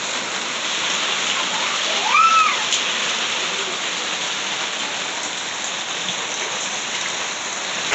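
Heavy monsoon rain falling steadily. About two seconds in, a short rising-and-falling call is heard through it.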